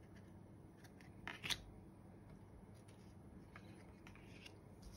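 Trading cards being handled and laid down on a wooden desk: two quick taps about a second and a half in, then a few faint ticks. Otherwise near silence.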